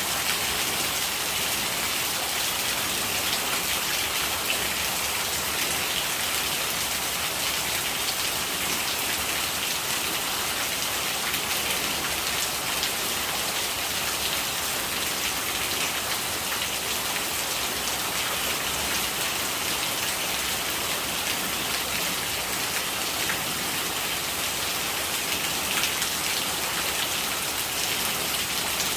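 Steady rain falling: a dense, even hiss of many small drop ticks.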